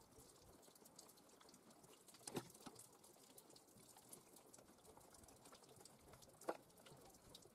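Near silence with faint clicks and taps from a hand screwdriver driving screws through a steel bracket into plywood. Two sharper clicks stand out, about two and a half and six and a half seconds in.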